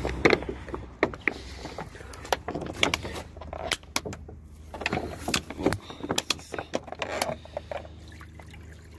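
Irregular sharp clicks and knocks from hands working at a wooden rabbit hutch and a plastic water bottle, over a low steady rumble.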